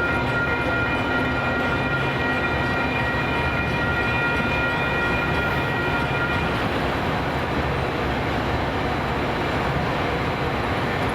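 Train passing on the rails, a steady loud rumble and rail noise. A set of steady high-pitched tones runs over it and stops about six and a half seconds in.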